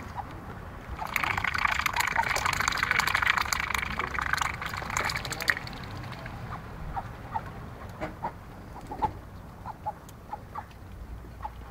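Domestic ducks dabbling their bills fast in a shallow tub of water, a rapid sputtering chatter likened to an outboard motor, from about a second in until about halfway. After it stops, a scattering of short, soft duck calls.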